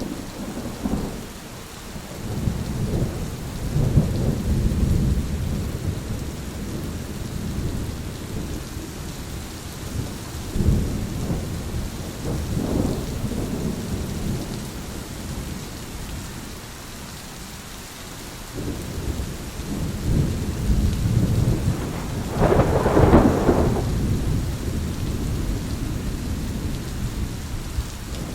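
Steady rain with thunder rolling in low rumbles several times, the loudest and sharpest clap about 23 seconds in.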